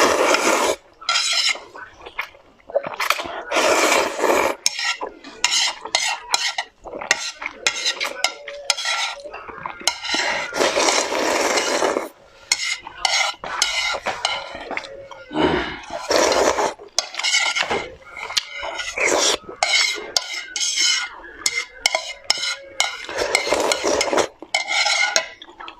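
Utensils stirring, scraping and clinking in a bowl or dish, in irregular bursts with sharp clicks.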